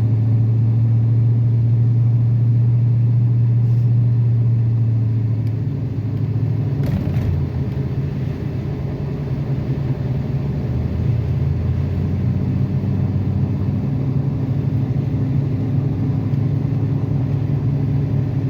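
Four-wheel-drive pickup truck driving, heard from inside the cab: a steady low engine and road drone. About five seconds in the hum shifts and eases for a few seconds, then settles again at a changed pitch.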